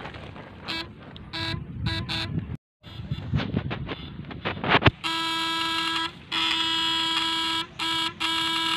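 Battery-powered electrofishing shocker buzzing as current is sent through its probes into a swamp-eel burrow to stun the eels. It is a loud, steady, pitched buzz that starts about halfway through and cuts out briefly a few times, with short bursts of the same buzz in the first couple of seconds.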